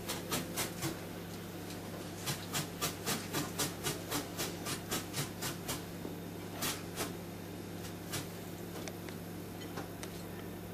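Crisp little snaps and clicks as fresh lettuce is torn and laid onto a plate by hand, coming in a regular run of about three a second for a few seconds, over a low steady hum.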